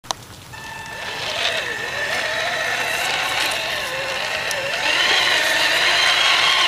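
Electric motor and GD-600 2.5:1 reduction gearbox of a Tamiya CC-01 RC crawler whining as the truck crawls along, the pitch wavering with the load. The whine grows louder and slightly higher about five seconds in, after a click right at the start.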